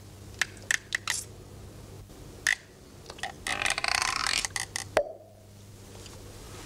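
A nail being worked out of a leather shoe sole with a small metal tool: a few light clicks, a scraping rasp around the middle, and one sharp click about five seconds in.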